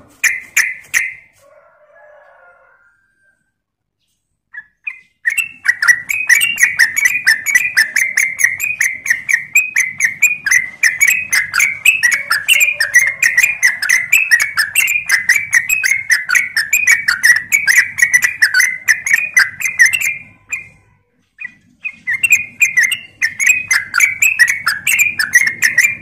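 Yellow-vented bulbul (trucuk) calling: a short call at the start, then, about five seconds in, a long rapid-fire run of chattering notes (the run bird-keepers call ropel) that lasts some fifteen seconds. After a brief break a second run starts and carries on to the end.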